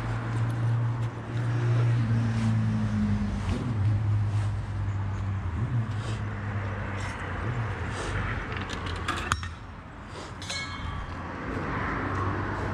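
A steady low mechanical hum. It fades briefly about nine seconds in, with a sharp click and a short tone a second later, then returns.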